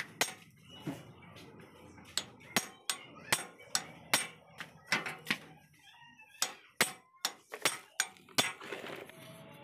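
Metal-on-metal hammer blows on a steel shaft, driving it out of a flanged hub on a hand tractor. There are some sixteen sharp, irregular knocks, about two a second.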